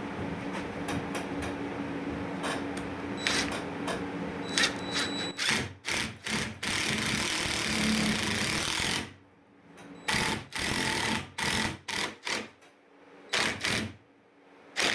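Power drill driving a Torx-head screw into a drilled hole in wood: the motor runs steadily for about five seconds, then runs in a series of short bursts with pauses as the screw is driven home.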